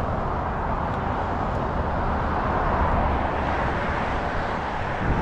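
Road traffic going by: a steady rush of passing vehicles that swells a little around the middle.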